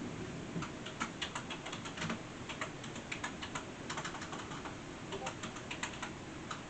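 Irregular run of light, sharp clicks, several a second, over a steady background hiss.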